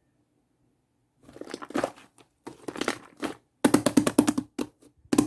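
Shaving-foam slime being squeezed and worked by hand, giving clusters of crackling, popping clicks. It starts about a second in, and the densest run of rapid pops comes just past the middle.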